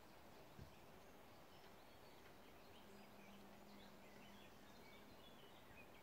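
Near silence: faint outdoor ambience with small birds chirping in the distance. There is a soft low thump about half a second in, and a faint steady hum in the middle.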